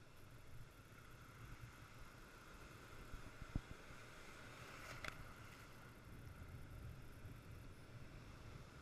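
Faint, steady rush of breaking surf and wind, with a single sharp knock about three and a half seconds in.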